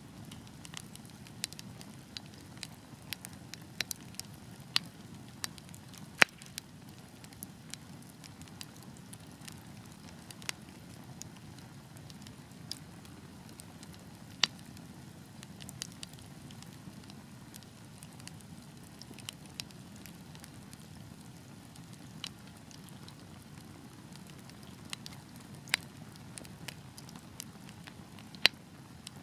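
Wood fire burning in a fireplace: a steady low rush of flame with irregular sharp crackles and pops, the loudest pops about six seconds in and near the end.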